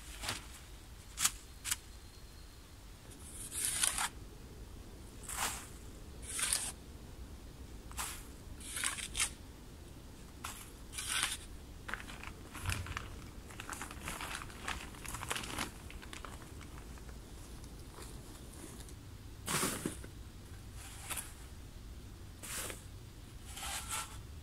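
Plastic sheeting and plastic sacks crinkling and rustling as they are handled, in short, irregular bursts, with a couple of sharp clicks about a second in.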